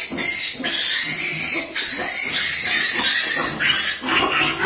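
A piglet a few days old squealing loudly in long, shrill squeals with brief breaks: the distress squeal of a piglet being caught and held.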